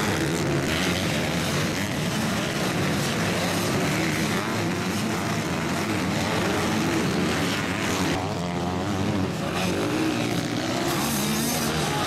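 Several motocross bike engines running on the track, overlapping, their pitch rising and falling as the riders rev and back off.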